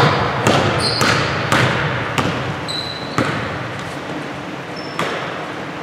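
A basketball bouncing on a hardwood gym floor, several sharp irregularly spaced bounces that echo in the hall, with brief high squeaks of sneakers on the floor.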